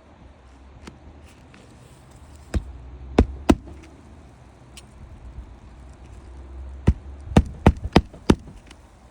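Sharp hammer blows on a shingle roof: three single strikes, then a quicker run of about five.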